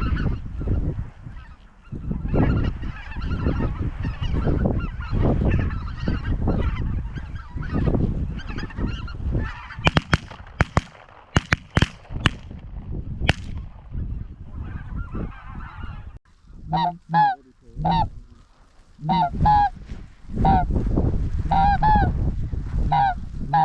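A flock of snow geese calling over low wind rumble. About halfway through comes a quick run of sharp cracks. In the last third, single honks stand out clearly in short repeated groups.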